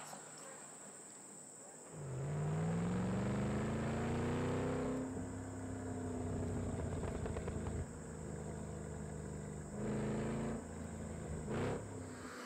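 Chevrolet SS's 6.2-litre V8 accelerating. About two seconds in it comes in suddenly and rises in pitch, holds, then eases off, with a shorter surge near the end. Faint insect chirping comes before it.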